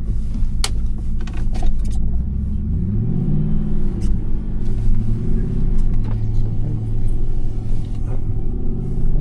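A 4x4 truck's engine running steadily, revving up about three seconds in and then holding at the higher speed. A few sharp knocks sound in the first two seconds.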